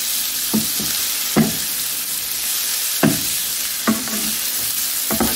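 Green beans, onions and red peppers sizzling in olive oil in a frying pan, a steady hiss, while a wooden spatula stirs them with about six short scraping strokes against the pan.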